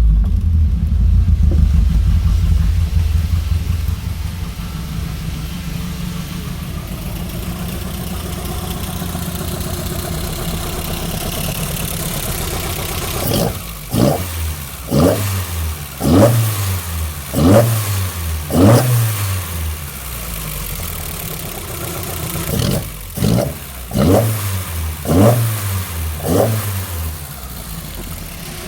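VW Golf Mk1 GTI 1.6-litre four-cylinder engine, breathing through 45 Weber carburettors and a Schrick SR1 exhaust, settling to a steady idle. About halfway through, the throttle is blipped in a quick run of short revs that drop straight back each time. It idles again, then comes a second run of about five blips near the end.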